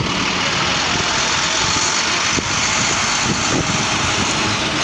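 A school bus pulling in, its engine and road noise running steadily, with wind buffeting the microphone.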